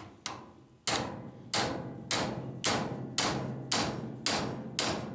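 Hammer driving a pin punch against a seized retaining pin, metal on metal: two light taps, then steady blows about every half second, each ringing briefly. The pin is stuck fast and does not move.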